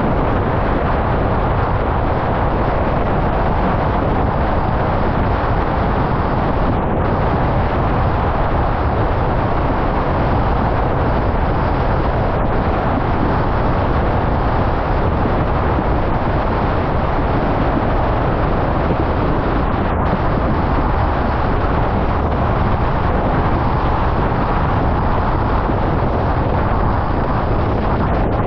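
Steady wind buffeting a GoPro Hero 10's microphone, mixed with the rush of water under a slalom windsurf board sailing at speed.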